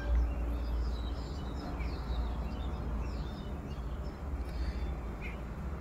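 Steady low rumble of wind and ride noise on the microphone of a moving Yamaha MT-15 motorcycle, with faint bird chirps over it.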